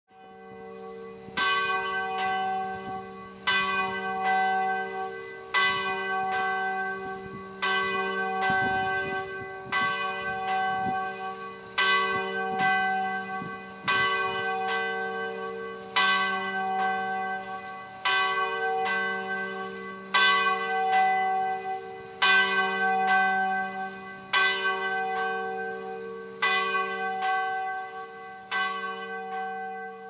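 Texas Tech's Victory Bells, tower bells pealing in celebration of a win. A loud stroke comes about every two seconds, with lighter strokes between, and each ring carries on under the next.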